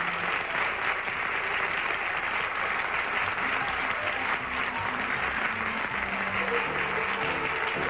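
Studio audience applauding steadily, with the show's closing theme music coming in faintly underneath about halfway through.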